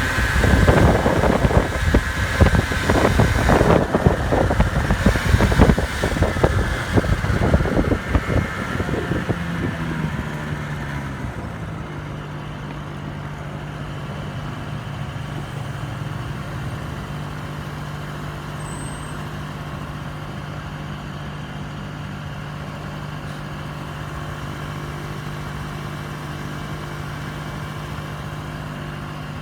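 Small 50cc scooter engines with loud, unsteady noise for about the first ten seconds. Then one engine note falls and settles into a steady, even drone for the rest of the time.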